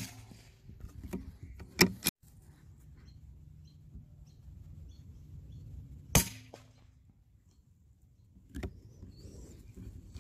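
A CZ 452 .22 LR rimfire bolt-action rifle firing: sharp cracks about two seconds in and about six seconds in, the second with a short ringing after it, with lighter clicks and knocks between them.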